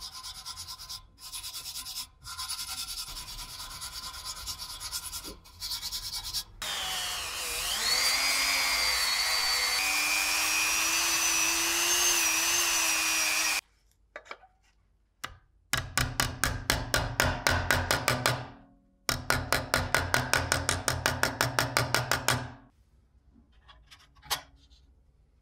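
Hand scraping strokes on a steel part clamped in a bench vise, then a small rotary tool with an abrasive polishing wheel whining steadily against steel for about seven seconds, its pitch dipping slightly under load before it cuts off. This is followed by two runs of rapid, even scraping strokes.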